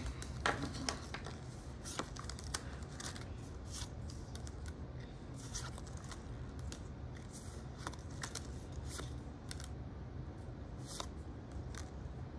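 Trading cards being slid and flipped one by one in the hand: scattered soft flicks and taps over a steady low hum.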